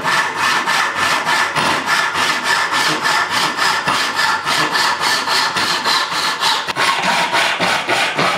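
Hand saw cutting through a small block of wood, in quick, even back-and-forth strokes.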